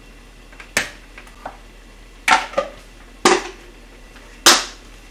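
Sharp clicks and knocks of kitchenware as side dishes are served out with chopsticks from a plastic food container into a ceramic dish and the container is put away: about half a dozen separate knocks, the loudest near the end.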